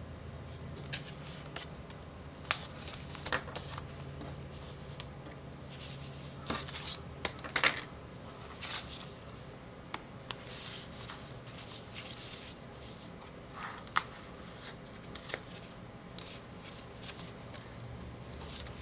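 Handling of a dot-grid notebook in a clear plastic cover: pages turned and smoothed flat, with scattered light clicks and short paper rustles, the loudest about eight seconds in and again near fourteen seconds, over a steady low hum.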